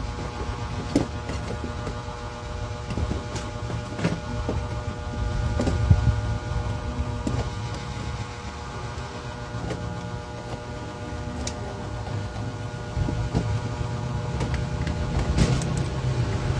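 A steady hum over a low rumble, with a few scattered light clicks and taps as electrical wires are twisted together and pliers are worked at plastic junction boxes.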